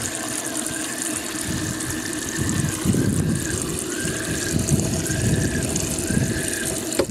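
Homemade boat live well's aerator and water pump running: steady bubbling water with a motor hum, and a light squeak recurring roughly once a second.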